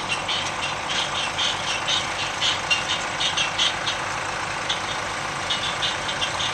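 New Holland TT60 tractor engine idling steadily, with irregular short, high clicks over it through the first four seconds and again near the end.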